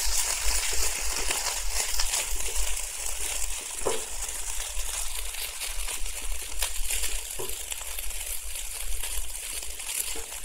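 Fried rice with egg and sausage sizzling and crackling in a hot wok, with the scrape and occasional tap of a spatula stirring it.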